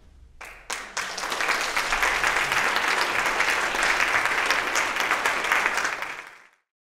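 Audience applauding, starting about half a second in, swelling within a second, then cut off abruptly near the end.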